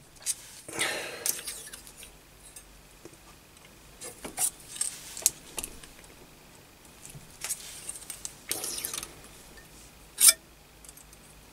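Scattered light metallic clinks and scrapes of hand tools on a lathe's quick-change tool post: a spanner and socket wrench work the tool-height adjusting nut and a steel rule is handled, as the turning tool is lowered to centre height. One sharper clink about ten seconds in is the loudest.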